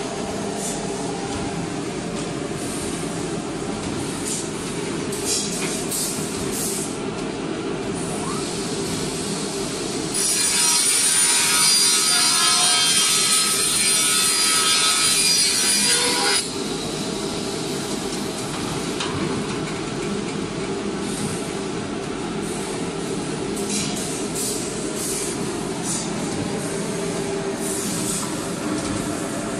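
Automatic wood-cutting saw machine running with a steady mechanical hum. About ten seconds in, its circular saw blade cuts through a wood panel for about six seconds, a loud, high-pitched cutting noise that stops abruptly. A few sharp clicks from the machine come before and after the cut.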